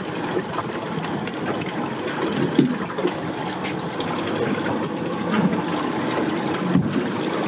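Sea water lapping against the side of a boat, a steady wash of water noise.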